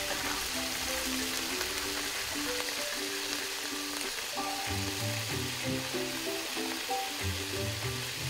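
Red sauce sizzling in a miniature metal wok with a steady hiss, under background music with a simple melody; a bass line joins about halfway through.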